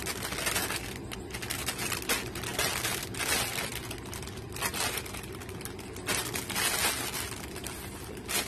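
Clear plastic packet of small toy dinosaurs crinkling as it is handled, in irregular bursts.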